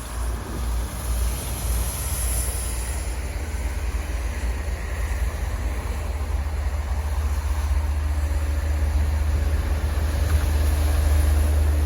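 Wind from a blizzard buffeting the microphone: a deep, unsteady rumble that grows louder toward the end.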